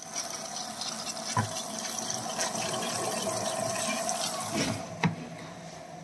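Water rushing into an LG front-load washing machine as it fills through the detergent dispenser, with a steady hum under it. The rush eases off about five seconds in, and a sharp click follows.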